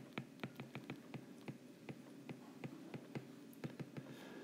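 Faint, irregular clicks of a stylus tip tapping on a tablet's glass screen while handwriting, about four or five a second.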